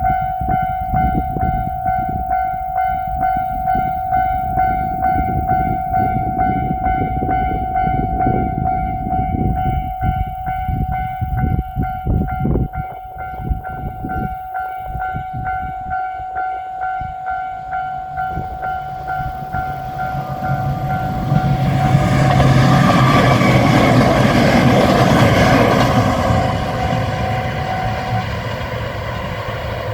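Japanese level-crossing warning bell dinging over and over in a steady rhythm while a train approaches and passes. The train's wheels and running noise build to their loudest about three-quarters of the way through, then fade. The bell stops near the end.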